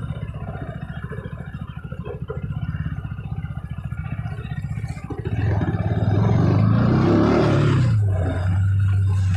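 KTM RC 200's single-cylinder engine through its stock exhaust, first running at low revs with a fast pulsing beat. About five seconds in the throttle opens and it gets louder, its note rising in pitch, then falling back near eight seconds and holding steady.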